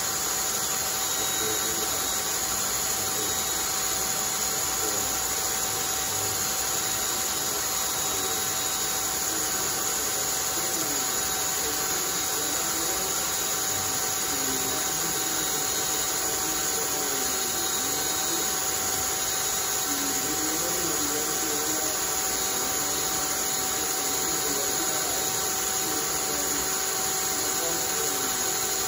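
Cordless drill motor running steadily at constant speed, spinning a homemade wooden centrifuge rotor: an even rush of air and motor noise with a few steady tones in it.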